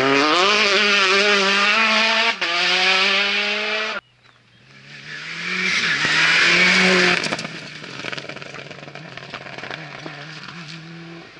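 Rally car engine revving hard under acceleration, pitch climbing with one upshift about two seconds in. After a sudden cut, a second rally car approaches, passes at full throttle and fades into the distance.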